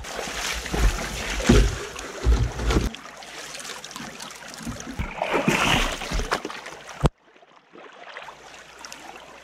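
Water pouring and splashing as a sluice box is rinsed out into a plastic gold pan, with some heavy low bumps in the first few seconds. After a sudden cut about seven seconds in, a creek flows more quietly.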